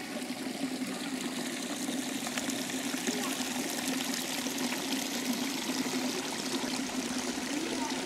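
Spring water running steadily over the concrete lip of a spring-fed pool: a continuous trickling, splashing wash with a steady low hum underneath.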